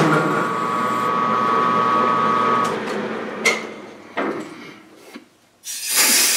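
Machine-tool spindle running a boring cut in a tractor axle housing with a steady whine, stopping about two and a half seconds in. A sharp metallic clink and a couple of knocks follow, then a short burst of hiss near the end.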